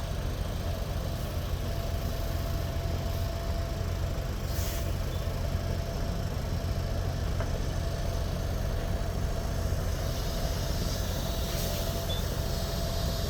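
Heavy vehicle engine running steadily, with a short hiss about four and a half seconds in.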